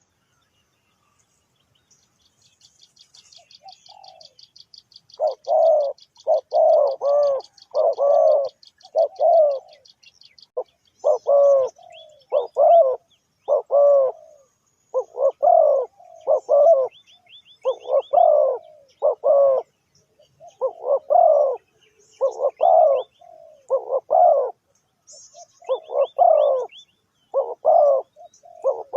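Spotted dove cooing over and over in short multi-note phrases, starting faintly about four seconds in and then repeating steadily. A fast, high, even trill runs underneath during the first ten seconds, and short runs of high chirps come in a few times later.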